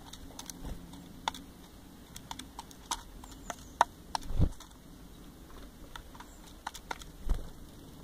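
Eurasian nuthatch pecking at oat flakes in a plastic feeding bowl: irregular sharp taps and clicks of its bill, with two louder dull thumps about four and a half and seven seconds in.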